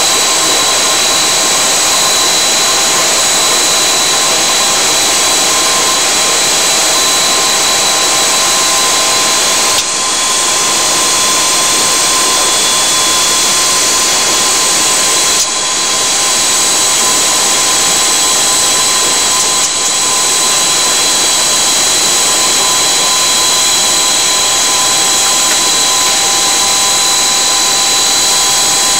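Aircraft engines heard from inside the cockpit: a loud, steady noise with several high whining tones. The whine shifts slightly in pitch about ten seconds in.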